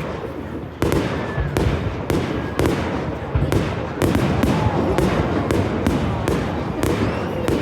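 Fireworks display: a rapid, irregular run of sharp bangs and cracks over a continuous low rumble, with the bursts coming thicker about halfway through.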